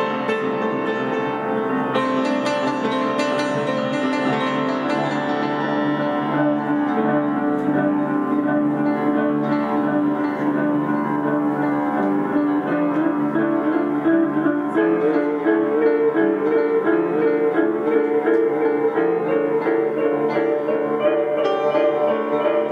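Live piano and electric guitar duet: an upright piano, played with its front panels off and its strings exposed, rings out dense chords with a steady run of repeated notes over held tones, alongside a hollow-body electric guitar.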